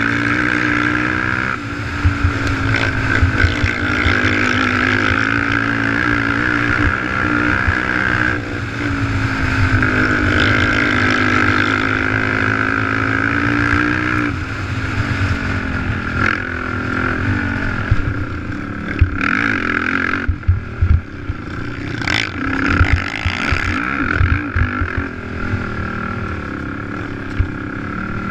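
Race quad's engine running hard at high revs, holding a steady pitch with brief dips at shifts for about fourteen seconds, then rising and falling with throttle changes. Sharp knocks from the chassis and suspension over the rough track come in the second half.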